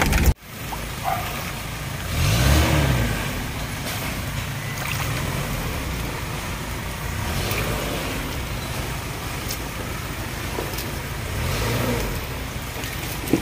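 An off-road 4x4's engine running, with the revs rising and falling about two seconds in and again near the end. A short knock comes just before the end.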